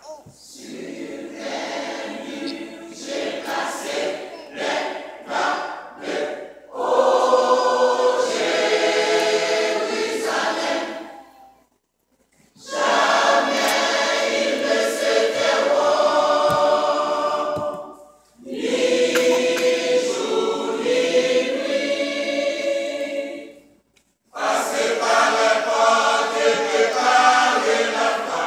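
Church choir singing, a lighter pulsing opening followed by full-voiced phrases of about five seconds, each broken off by a short pause.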